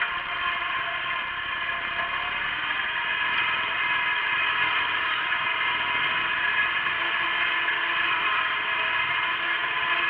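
Wheel Horse garden tractor's engine running steadily under load as it pulls a moldboard plough through the soil.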